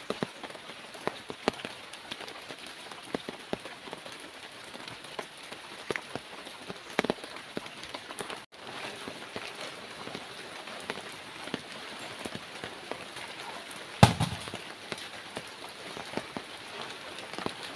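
Steady rain with scattered drips and plops of water. One louder thud comes about two-thirds of the way through.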